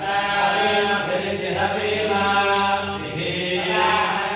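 A group of men chanting Vedic mantras together in unison, without a break.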